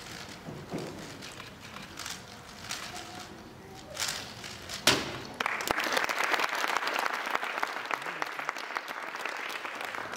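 Clicking of a 3x3 speedcube being turned fast, then a sharp slap at about five seconds as the solve ends and the competition timer is stopped, followed by audience applause.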